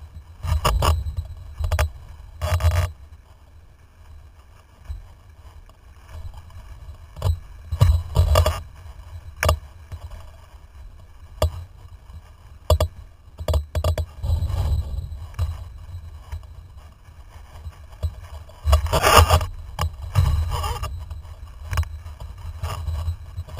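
Wind rumbling on the microphone of a camera mounted on a windsurf rig, over water rushing and splashing against the board. Sharp knocks come through at irregular moments, with louder bursts of splash about 8 and 19 seconds in.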